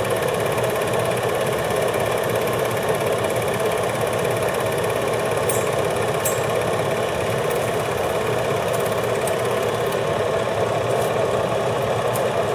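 8mm film projector running: a steady, unchanging mechanical whirr with a constant level throughout.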